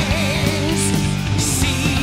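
Background rock music with guitar and a wavering lead line in the first half.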